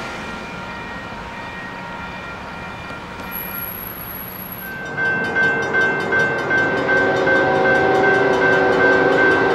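Railroad grade crossing bell ringing while a train passes with a low rumble. About five seconds in, a louder crossing bell dings repeatedly as an approaching train sounds a multi-note air horn chord, held for several seconds.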